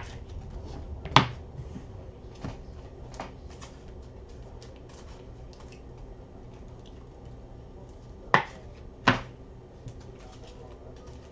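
Scattered sharp clicks and taps from objects being handled: a loud pair in the first second or so, fainter ones over the next few seconds, and another loud pair about 8 to 9 seconds in, over a low steady hum.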